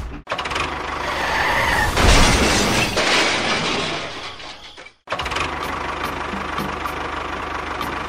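A long crashing, shattering noise that swells to its loudest about two seconds in and dies away. It cuts off and gives way to a vehicle engine running steadily.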